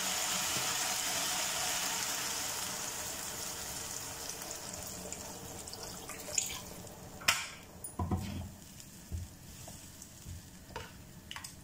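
Water poured into a hot kadai of frying drumsticks and potatoes: a steady sizzle and hiss that slowly dies down as the pan fills. From about six seconds in, a few knocks and scrapes of a spatula stirring in the pan.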